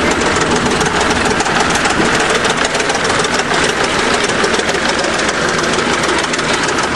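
1953 International TD20 crawler dozer's diesel engine running steadily at idle, loud, with a rapid, even clatter.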